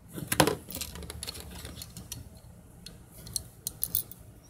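Small plastic Lego pieces clicking as they are handled and pressed together. There are a few sharp clicks about half a second in and a cluster of clicks near the end.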